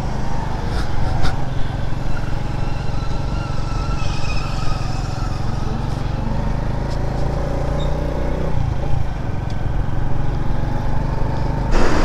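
Brand-new Honda CD-70's 72 cc single-cylinder four-stroke engine running steadily as the motorcycle is ridden along the road, at an even, gentle pace during its break-in.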